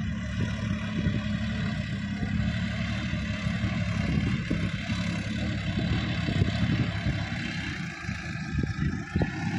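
Sonalika DI 50 RX tractor's diesel engine running steadily under load while working a field.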